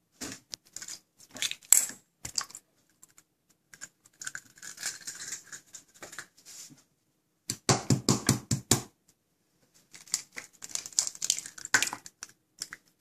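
Eggs cracked on the rim of a stainless steel bowl: groups of sharp taps and cracking shell, with a dense run of knocks about halfway through.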